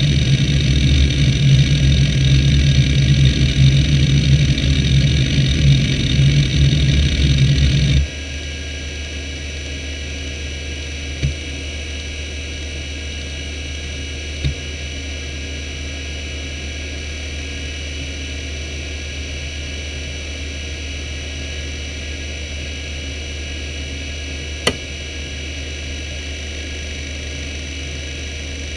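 Conner CP3360 3.5-inch SCSI hard drive (four platters, 4500 rpm) under a benchmark. For about the first eight seconds its heads seek rapidly in a loud, dense rumbling chatter, which stops abruptly. After that the spinning platters give a steady whine, with a few single clicks.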